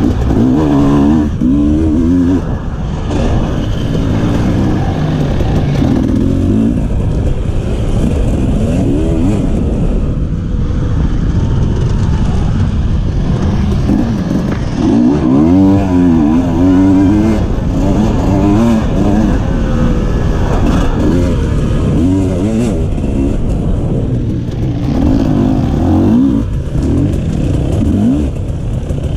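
Two-stroke enduro motorcycle engine heard from on board, revving up and falling away again and again as the rider works the throttle over the course.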